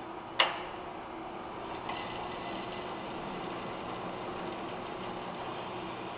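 Roll-cutting machine running with a steady hum, with one sharp clack about half a second in and a lighter click near two seconds.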